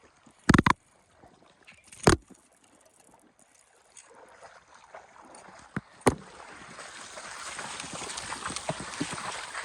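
Three sharp knocks, then water splashing and rushing, growing louder from about six seconds in.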